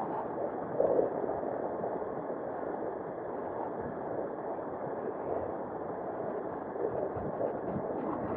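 Steady rushing wind and road noise on the microphone of a camera mounted on a moving bike, with a brief louder gust about a second in.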